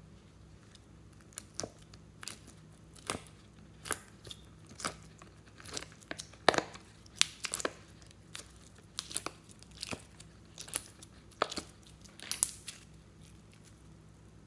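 Glossy slime being squeezed and peeled out of a heart-shaped mould and stretched, making sticky snaps and crackles at irregular intervals, starting about a second and a half in.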